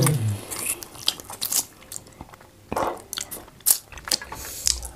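Close-up eating sounds: chewing and biting fufu and goat meat, with wet mouth smacks and scattered clicks.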